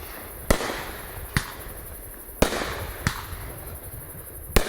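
A 500-gram, 18-shot consumer fireworks cake firing its shots: five sharp bangs, roughly one a second, each followed by a short hiss.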